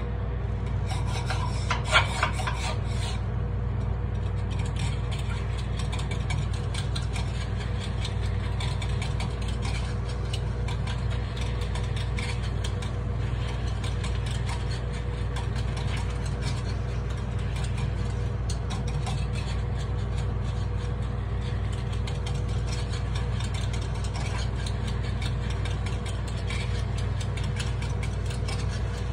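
Metal takoyaki picks scraping and clicking rapidly against the takoyaki pan as the balls are turned, with a louder clatter about two seconds in, over a steady low hum.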